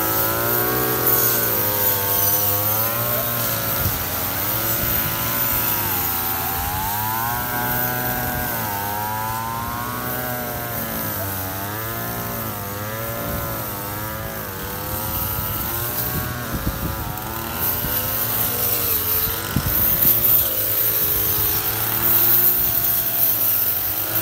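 Several engine-driven brush cutters running together while cutting grass, their engine pitch rising and falling as the throttles are worked.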